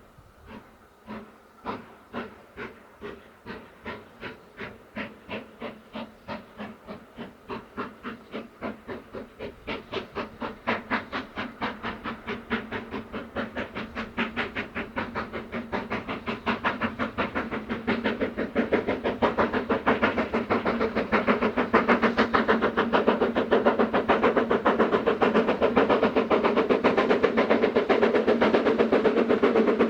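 Steam locomotive getting away, its exhaust beats starting slow, about two a second, and steadily quickening and growing louder as it accelerates.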